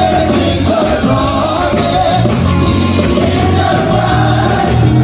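Background music with a singing voice over a steady bass line.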